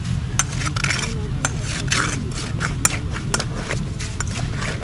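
Hand ice auger boring through ice, its blades scraping and crunching with each turn of the crank, with scattered sharp clicks.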